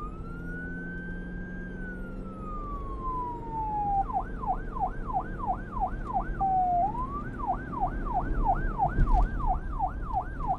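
Emergency-vehicle siren sound effect. It opens with one slow wail that rises and then falls over about four seconds, then switches to a fast yelp of about three rises and falls a second, broken once by a brief upward swoop midway.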